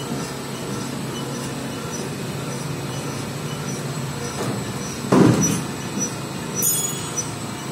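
Mobile truck-loader belt conveyor running with a steady mechanical hum as its boom is lowered. A loud thump comes about five seconds in, and a brief high hiss a second and a half later.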